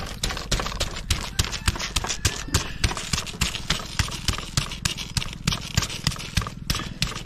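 A broad-bladed knife scraping the scales off a large red fish, in quick even strokes of about three or four a second, each a sharp rasping click.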